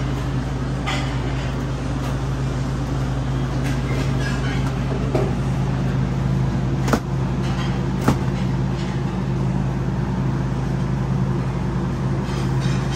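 Steady drone of commercial kitchen machinery, a low hum under a broad rush of air. A little past the middle come two sharp knocks about a second apart.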